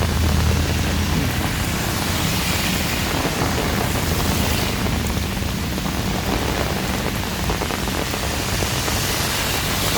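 Heavy rain pouring steadily, with a low rumble underneath and the hiss swelling briefly a few times, as gusts of wind drive the rain.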